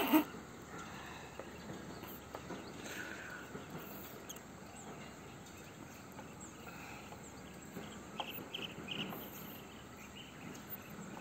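A short loud noise right at the start, then steady outdoor background noise with a few faint high chirps about eight to nine seconds in.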